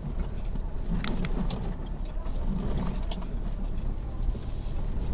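Suzuki Jimny 4x4's engine running at low speed while crawling over a rocky trail, with a few short knocks and rattles scattered through it.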